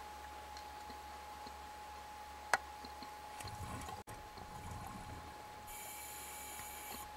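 A scuba diver's regulator breathing underwater: exhaled bubbles gurgle in the middle, then the hiss of an inhalation starts near the end. There is one sharp click about two and a half seconds in, and a faint steady tone underneath.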